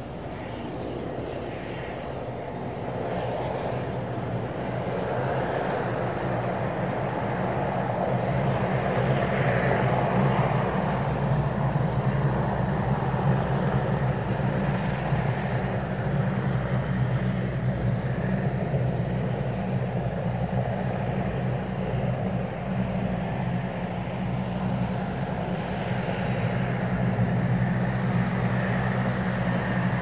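Engines of a de Havilland Canada Dash 7, a four-engine turboprop airliner, running on an airport apron. A steady drone with a low hum that grows louder over the first several seconds, then holds.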